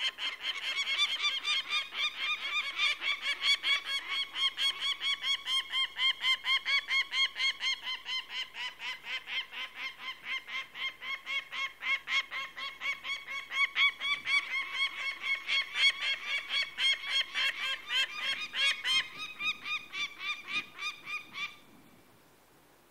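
Peregrine falcon giving its kak-kak-kak alarm call: a long, unbroken run of rapidly repeated calls, about four or five a second, that stops near the end.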